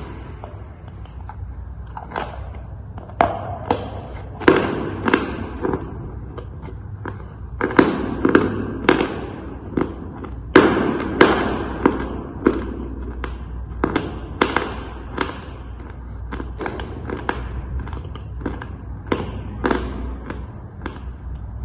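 Dry chalk crunching: a run of sharp, crisp crunches at an uneven pace, about one a second, some much louder than others.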